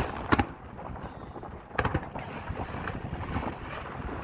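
Aerial fireworks going off: several sharp bangs, one at the start, another a moment later and a close pair about two seconds in, over a steady wash of outdoor noise.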